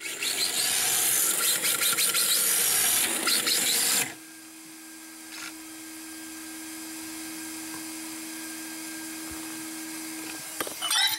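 Electric radio-controlled drift car's motor whining and its tyres scrubbing on paving tiles as it drifts in, cutting off suddenly about four seconds in. A low steady hum follows, and a short clatter near the end as a hand takes hold of the car.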